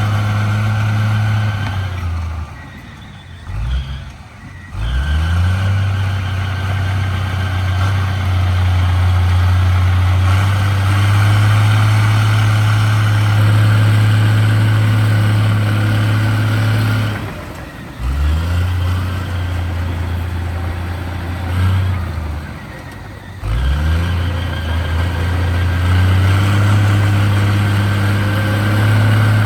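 Heavy diesel engine of earthmoving machinery running under load, its pitch sagging and climbing back up three times.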